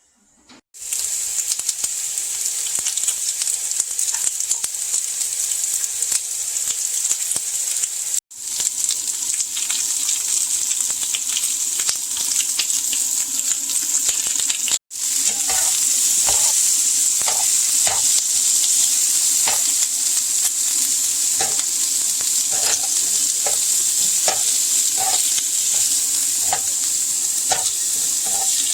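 Food sizzling steadily in a hot frying pan, with the sound cutting out abruptly twice. In the later part a metal utensil knocks and scrapes against the pan about once a second as the food is stirred or turned.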